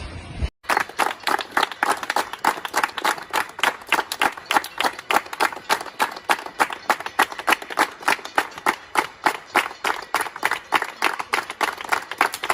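Hands clapping steadily at about four to five claps a second, starting abruptly about half a second in.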